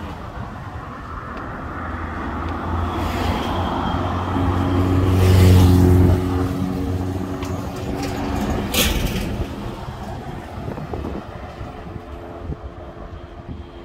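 A motor vehicle's engine approaching and passing close by, swelling to its loudest about halfway through and then fading away. A short hiss comes a few seconds after it passes.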